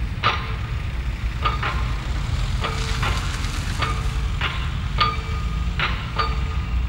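Repeated metallic clanks, like a hammer on steel, each ringing briefly, coming irregularly about once a second and often in quick pairs, over a steady low rumble of traffic.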